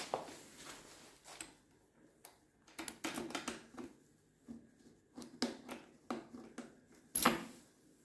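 Key being slid into and turned in a scooter's ignition lock: a scattering of small metallic clicks and rattles, with the sharpest click about seven seconds in.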